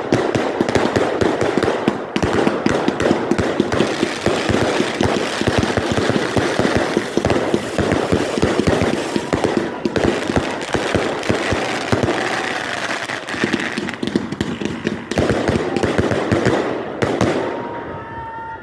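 Consumer firework cake firing a long, dense barrage of rapid bangs and crackles. It thins out and gets quieter near the end.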